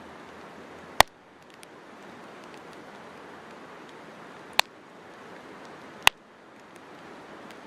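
Wood campfire burning with a steady rush of flame, broken by sharp crackling pops from the wood: three loud pops spread through, with fainter ticks in between.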